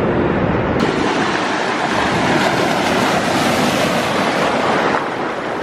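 Ocean surf washing onto the beach: a steady rush of breaking waves that swells in the middle and eases off about five seconds in.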